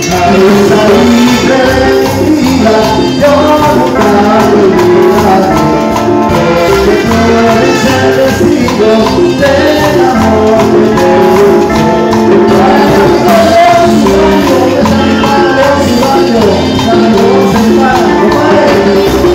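Live Latin tropical dance band playing: timbales and cymbal keep a steady dance beat under trumpet and keyboards.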